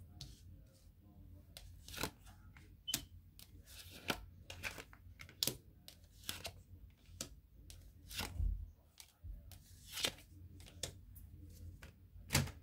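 Tarot cards being shuffled in the hand and laid down on a wooden table: irregular sharp card snaps and taps, roughly one a second, with the loudest snap near the end.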